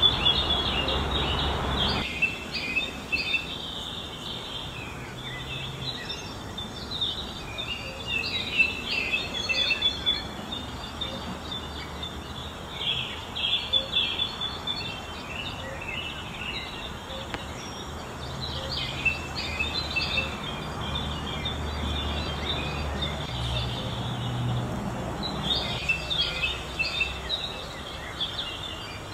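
Birds chirping and twittering in dense, overlapping bursts of short high notes, over a low background rumble.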